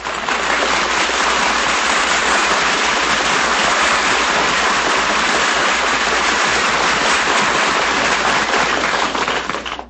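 Steady, dense crackling noise at full loudness, with no pitch to it, that cuts off suddenly at the very end.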